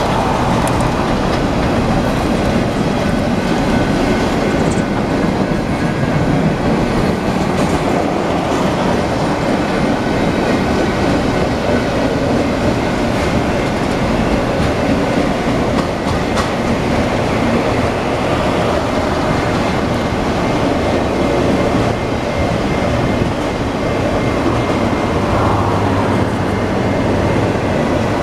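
Union Pacific mixed freight train rolling steadily through a grade crossing, its cars rumbling and clicking over the rail joints as the train begins to slow.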